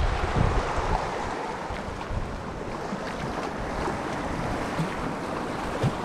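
Sea surf washing against shoreline rocks, a steady rushing wash, with some wind on the microphone.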